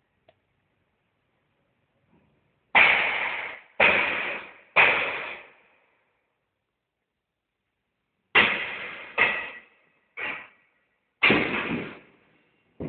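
Hammer blows on the church floor, seven heavy strikes in two groups with a metallic ring, each dying away in the long echo of the church.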